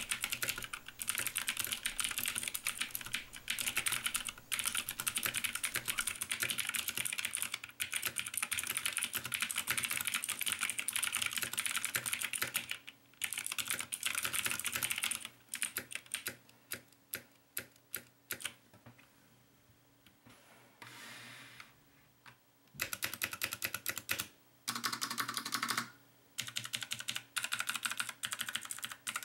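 Typing on a Nixeus Moto V2 mechanical keyboard with clicky Kailh Blue switches: a fast, dense stream of key clicks. About halfway through it slows to single keystrokes and stops for a few seconds. Then two short runs of typing start again near the end.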